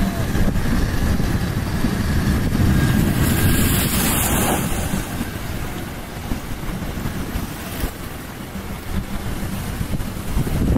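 Wind buffeting the microphone over waves washing against a rock breakwater and running up the sand, with a louder hiss of water between about three and five seconds in.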